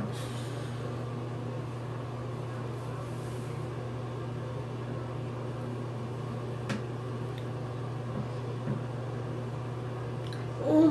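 A steady low mechanical hum, like a running fan or appliance, with a few faint light taps partway through.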